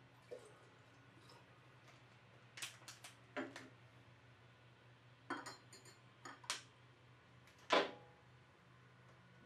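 A scattered run of light clinks and knocks as a metal funnel and a glass jar are handled and set on a tabletop beside a glass hydrometer cylinder, the loudest knock near the end.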